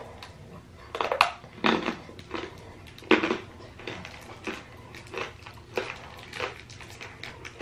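Crinkling of a small twist wrapper being pulled off a coffee-flavoured hard candy, in irregular crackles, the loudest in the first half.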